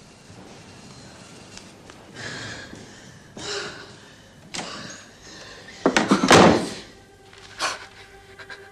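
A door being tried and banged in a reverberant corridor: a series of knocks and thuds, the loudest and longest about six seconds in, another shortly after.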